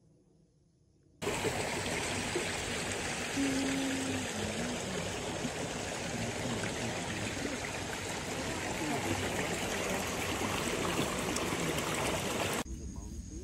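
Water rushing fast down a rice-paddy irrigation channel, a steady, loud rush that starts suddenly about a second in and cuts off shortly before the end.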